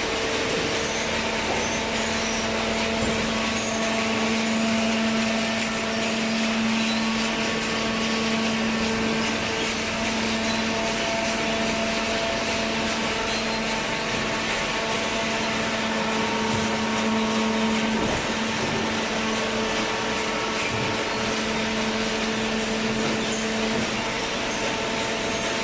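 Hydraulic cardboard baler running: its motor and hydraulic pump give a steady mechanical hum with a constant whine over a noisy background. The hum briefly dips about eighteen seconds in and its lowest tone drops away near the end.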